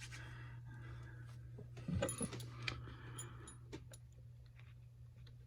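Faint metallic clicks and clinks of a trick bolt puzzle, a metal bolt and nut, being twisted and handled, most of them about two seconds in and again around three to four seconds. A steady low hum runs underneath.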